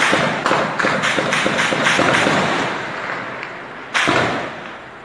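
A rapid series of sharp bangs, about three a second, fading over a few seconds, then a single louder bang about four seconds in with a trailing decay.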